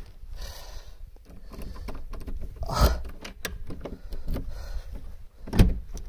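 Clicks and rattles of a metal-framed front door being handled, with two heavier thumps, one about three seconds in and one near the end.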